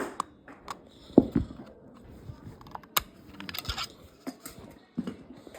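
Irregular clicks, taps and knocks of small plastic objects being handled, with a short stretch of rustling just past the middle.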